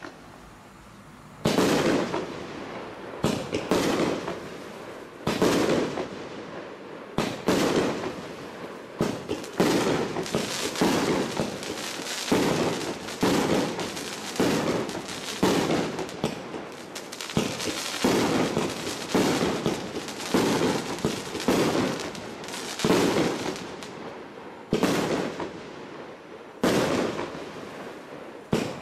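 A 35-shot, 30 mm fireworks battery (cake) firing shot after shot, roughly one every one to two seconds. Each shot is a sharp bang followed by a trailing noise that fades before the next.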